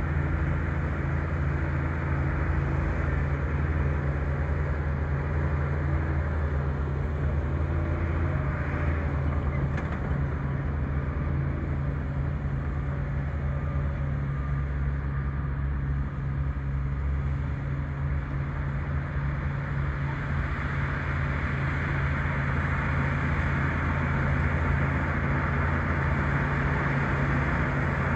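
Bulldozer's diesel engine running steadily with a low, even drone as the machine pushes brush.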